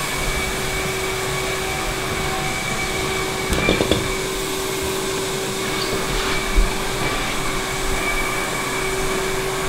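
Vacuum motor running steadily with a constant whine, blowing air into an appliance air lift so the refrigerator floats on it. A short clatter about three and a half seconds in and a low thump a few seconds later as the fridge is pushed.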